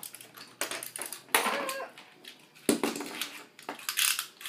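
Irregular plastic clicks and clatter of Beyblade spinning tops being handled and fitted onto their launchers.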